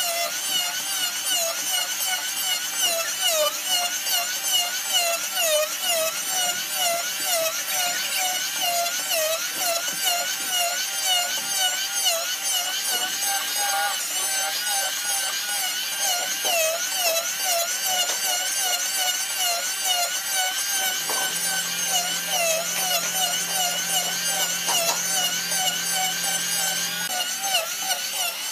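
Handheld electric planer running under load on hardwood, a high motor whine whose pitch dips and recovers again and again as the blades bite. A steady low hum joins for several seconds about three-quarters of the way through.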